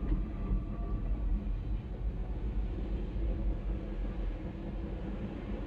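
Train rolling past: a steady low rumble of coaches on the rails.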